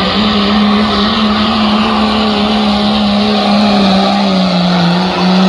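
Second-generation Dodge Ram's Cummins diesel running flat out under heavy load as it pulls a weight sled, a loud, steady, held engine note that sags slightly about four seconds in.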